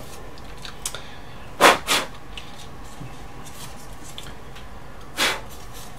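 Knocks from parts being handled on a workbench: two quick knocks in close succession about one and a half seconds in, then a single knock near the end.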